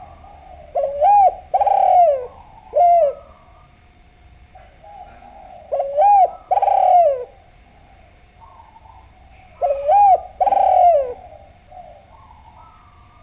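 Spotted dove (derkuku) singing: three phrases of two or three arched coos each, about four seconds apart, with fainter cooing in between.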